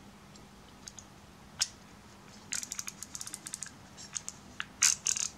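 Handling noise from a Carl Zeiss Jena Sonnar 180 mm f/2.8 lens barrel being turned over in the hands: small sharp clicks and taps of metal parts, a single one about a second and a half in, a quick cluster in the middle, and the loudest couple near the end.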